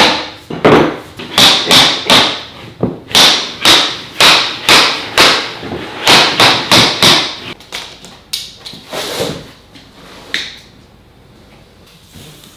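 A tapping block knocking luxury vinyl planks together at their click-lock joints: repeated sharp knocks, about two a second. They thin out after about eight seconds, and one sharp click comes near the end.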